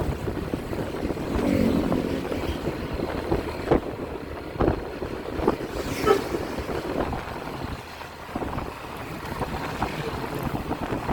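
Road traffic noise from moving vehicles, with wind buffeting the microphone and several sharp knocks scattered through it; the bus horn is not sounding.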